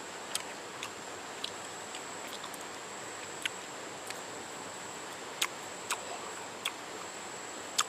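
Steady high insect drone in the background, cricket-like, with a few short faint clicks scattered through it.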